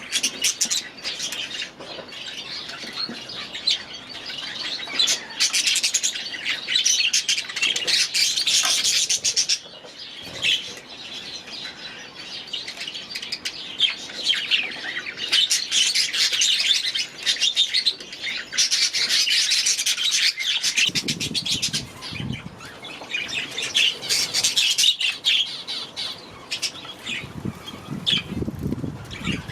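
A flock of budgerigars chattering and warbling in an aviary, a steady mass of fast overlapping chirps.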